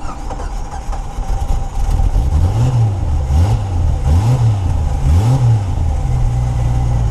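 1999 Jeep Wrangler TJ's 4.0-litre six-cylinder engine running just after a hard start, revved up and down about four times with the throttle, then settling to a steady idle near the end. The gas is what keeps it running: it had stalled when the gas was not held long enough.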